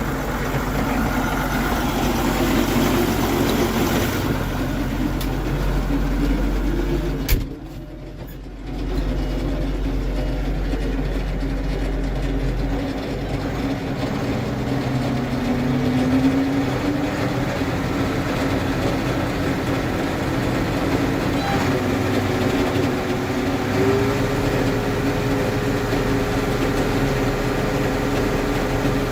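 Case 3294 tractor's diesel engine running steadily. There is a sharp click about a quarter of the way in and a short dip in level for about a second and a half, a brief rising pitch near the middle, and a steady whine over the last few seconds.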